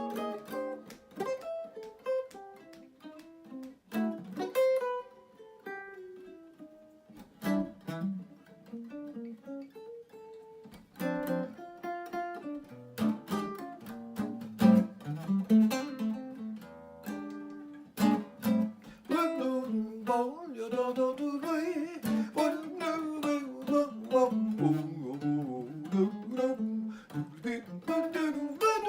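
Acoustic guitar playing a bossa nova instrumental passage: plucked melody notes over strummed chords. In the second half a wavering melody line rides over the chords.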